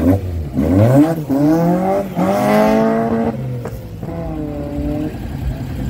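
Car engine accelerating hard as the car pulls away. Its pitch climbs in three quick pulls with short breaks between them, like gear changes, and is loudest two to three seconds in; a quieter engine note rises and falls near the end.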